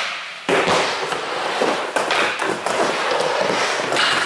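Skateboard wheels rolling on a wooden ramp and the board grinding along the edge of a ledge. The noise starts suddenly about half a second in.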